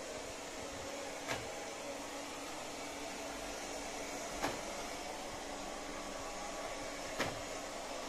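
Robot vacuum cleaner running, a steady whir of its fan and brushes, broken by three sharp clicks a few seconds apart.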